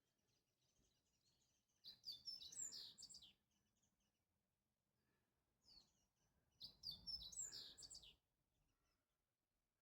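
A songbird singing: two phrases of quick, high, chirping notes about four and a half seconds apart, each lasting about a second and a half.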